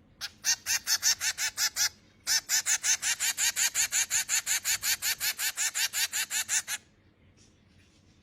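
Baby finch begging to be fed: a rapid run of high-pitched calls, about seven a second, for about a second and a half, a short pause, then a longer run of about four and a half seconds that stops abruptly.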